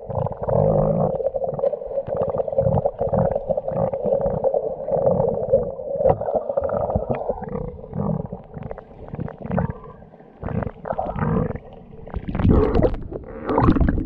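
Muffled underwater sound through a submerged action camera: bubbling and clicking water noise over a steady dull hum, with breath bubbles rising. It grows louder and splashier near the end as the camera comes up to the surface.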